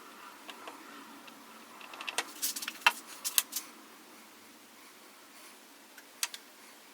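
Scattered light clicks and taps over a faint steady hiss, in a quick cluster about two seconds in and twice more near the end.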